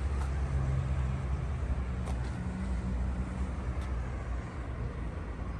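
Steady low rumble of an idling motor vehicle with traffic noise, and a couple of faint clicks.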